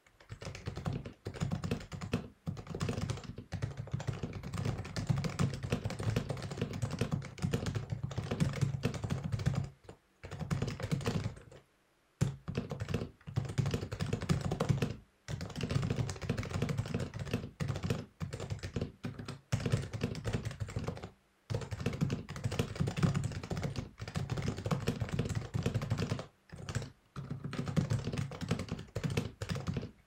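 Fast touch-typing on a stock HHKB Hybrid Type S keyboard, its silenced Topre capacitive switches giving a dense, steady stream of muted keystrokes. The typing breaks off for a few brief pauses along the way.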